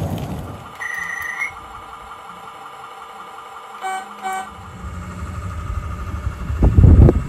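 Horn toots from a double-headed pair of radio-controlled battery diesel model locomotives: one short tone, then two quick toots. These are followed by the low rumble of their wheels and motors on the track, growing loud as the locos run close by near the end.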